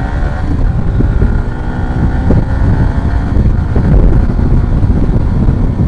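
Motorcycle engine running at highway speed, drowned by heavy wind buffeting on the rider's microphone; the engine's tone is audible underneath through the first few seconds, then fades into the wind.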